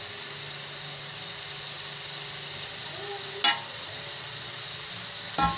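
A slotted steel serving spoon clinks sharply against a steel pot twice, about three and a half seconds in and again near the end, as chickpea-and-keema korma is spooned onto the rice, over a steady hiss.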